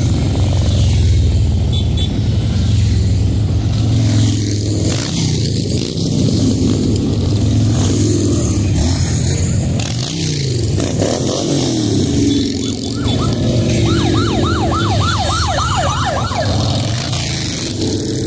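Motorcycles riding past in a procession, their engines running in a steady low rumble that rises and falls in pitch as bikes go by. About three-quarters through, a siren sweeps quickly up and down, about four times a second, for a couple of seconds.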